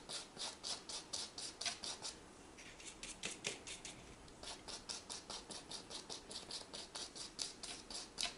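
Bristles of a flat paintbrush scrubbing back and forth on a stretched canvas, about five quick scratchy strokes a second, easing off briefly about three seconds in before picking up again.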